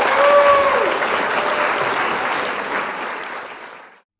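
Applause with a few short whistles in the first second, fading out near the end.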